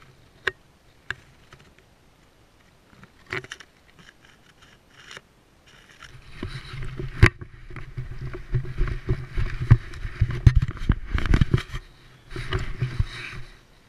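Knocks and scraping from a camera mount on a Rottweiler's back, rubbing and bumping as the dog moves. A few scattered knocks at first, then a long dense stretch of scraping with a low rumble and many knocks through the middle, and a shorter burst near the end.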